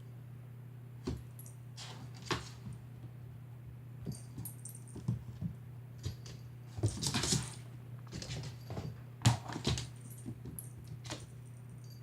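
House cat playing with a laser pointer: scattered short scuffles and breathy sounds every second or so, with a longer noisy stretch past the middle, over a steady low hum.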